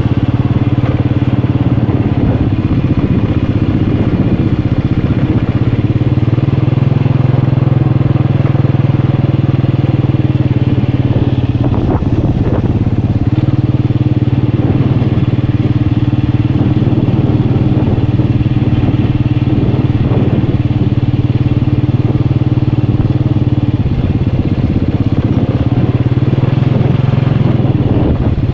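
Motorcycle engine running steadily while riding, getting a little stronger about six seconds in, then easing off briefly around twelve seconds and again near twenty-four seconds.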